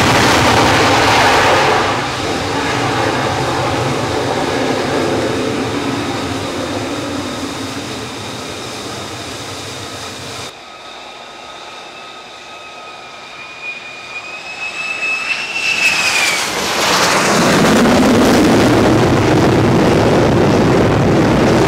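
F-35C Lightning II jet engine noise as the jet is launched by catapult off an aircraft carrier deck, loud at first and fading away over several seconds. After a cut, a quieter jet whine with a steady high tone that rises slightly. Loud jet engine noise then swells up again.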